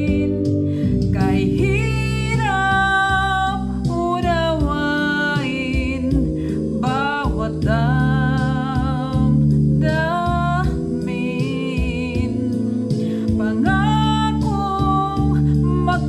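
A woman singing a slow Tagalog love ballad with vibrato over instrumental backing music.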